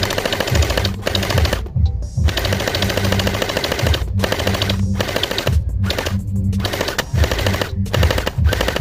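Rifle-style toy gel blaster firing in rapid full-auto bursts, several bursts broken by short pauses, over background music.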